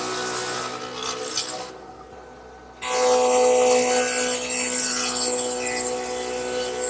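Radial arm saw fitted with a stacked dado head cutter, running with a steady whine and cutting across wood, one of several passes to hog out a rabbet. The cutting noise drops away for about a second around two seconds in, then a fresh pass starts and cuts loudly.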